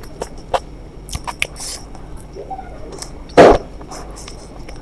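A few small mouth clicks and smacks of eating in the first second and a half, then one loud, short cough about three and a half seconds in.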